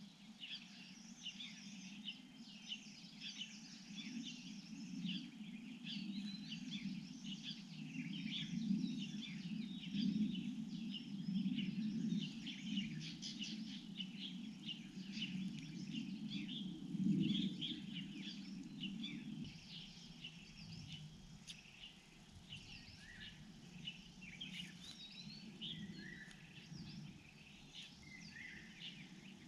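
Many small birds chirping and singing at once in a dense, continuous chorus. Under it runs a low, steady noise that fades about two-thirds of the way through.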